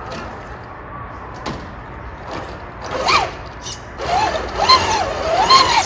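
Electric drive motor of a scale RC rock crawler whining up and down in short throttle bursts, four rising-and-falling whines in the second half. A few sharp clicks and knocks come from the truck on the rock course.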